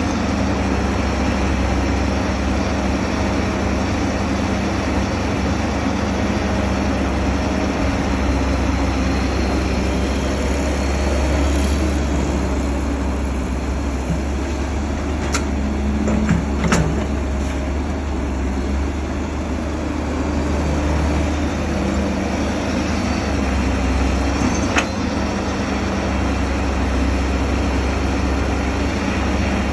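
Heavy machine's engine running steadily under a continuous low hum, with a few short sharp knocks around the middle and once more later on.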